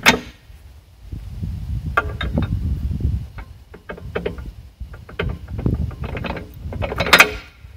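Heavy half-inch steel backhoe thumb and its pins clanking as the thumb is pushed up by hand into its retracted position and pinned. Irregular metallic knocks and clanks, the loudest just at the start and about seven seconds in, over a low rumble.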